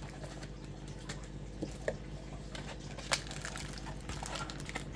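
Faint scattered clicks and taps of a plastic spinning-top toy and its packaging being handled, over a steady low hum.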